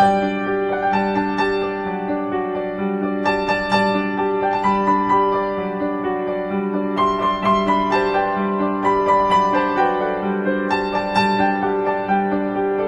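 Calm instrumental keyboard music: a melody of notes changing every half second or so over a held low note.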